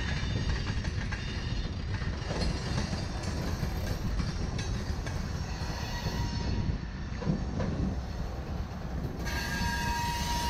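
Freight train of covered hopper cars rolling past: a steady low rumble of steel wheels on rail with faint clicks over the rail joints. A thin steady whine comes in near the end.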